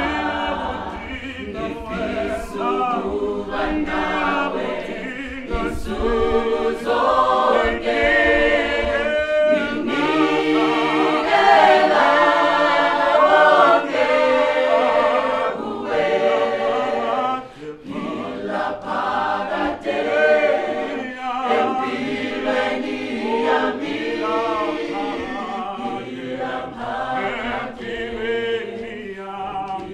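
Mixed church choir of men's and women's voices singing a cappella in harmony. It grows loudest around the middle, then drops off briefly a little later.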